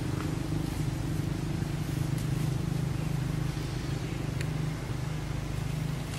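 Steady low hum of an engine running at an even pace, with no change in pitch.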